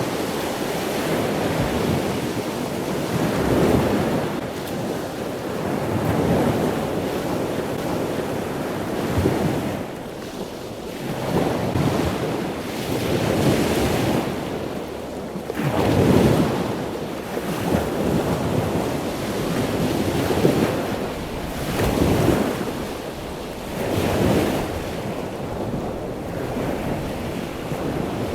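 Small waves washing onto the shore, with wind buffeting the microphone; the noise swells and ebbs every couple of seconds.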